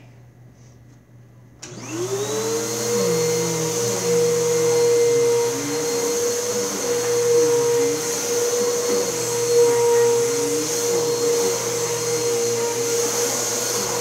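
Vacuum cleaner switched on a little under two seconds in, its motor spinning up to speed within about a second and then running steadily.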